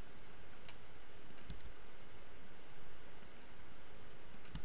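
A few scattered, sharp clicks of a computer mouse while curve points are selected and placed, over a steady faint hiss.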